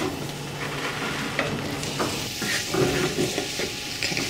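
Eggplant cubes sizzling in hot coconut oil in a glass pot, with a few soft knocks as more cubes are dropped in by hand.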